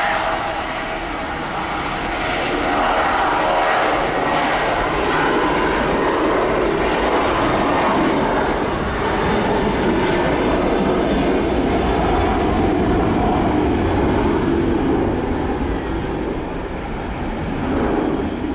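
Boeing 737 jet airliner's twin engines at takeoff power during the takeoff roll: loud, steady jet noise with a whine that fades over the first couple of seconds, swelling again near the end as the plane lifts off.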